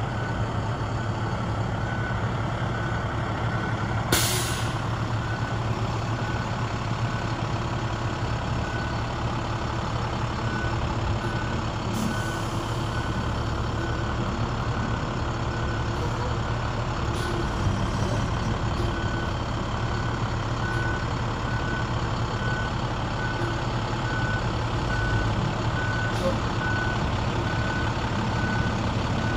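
2007 International 4300 box truck's diesel engine running steadily while its reverse alarm beeps about once a second. A short, loud hiss comes about four seconds in.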